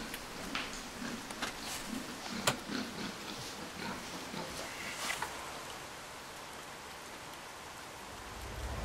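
Wild boar feeding at night: scattered sharp clicks and rustling, with a few low grunts in the first few seconds, over a steady hiss that carries on alone near the end.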